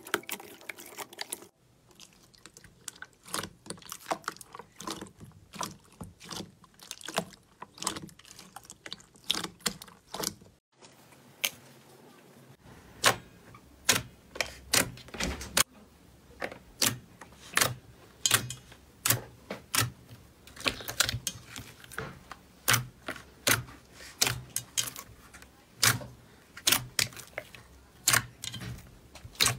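Slime pressed and squeezed by hand in a bowl, making a string of sharp, wet pops and clicks, about one or two a second. Partway through, the clicks turn louder and more regular.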